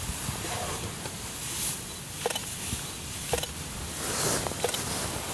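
Rustling with a handful of sharp clicks or snaps spread through it, over a low, steady rumble.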